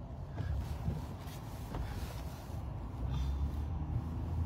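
Steady low rumble of a Jeep's engine and tyres heard from inside the cabin while driving slowly.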